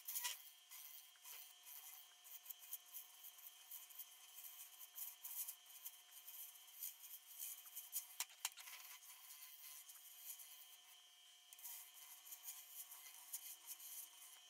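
A turning tool scraping and cutting on a silver maple goblet stem spinning on a lathe: a faint, continuous scratchy hiss, with a few sharp clicks about eight seconds in.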